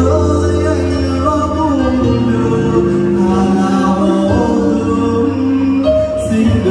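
A Vietnamese pop song: backing music with steady bass notes under a singing voice.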